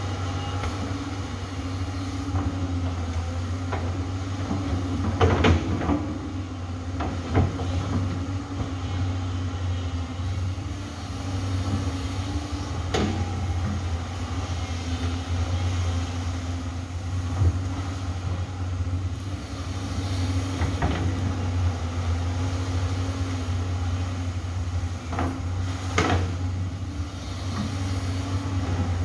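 Amphibious excavator's diesel engine running steadily, with several sharp knocks and clanks scattered through it.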